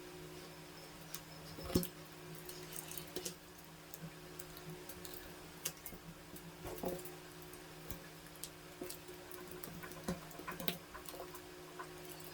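Scattered small clicks, taps and scrapes of prying at the edge of a Xiaomi Mi Notebook Pro 15.6's tight metal bottom cover, over a steady low hum.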